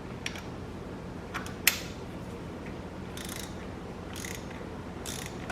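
A ratchet working a 32 mm oil filter socket on an extension to loosen the cartridge oil filter housing cap of a 2.4L Ecotec engine: a sharp click near the start, then short bursts of ratchet clicking about once a second as the handle is swung back between turns.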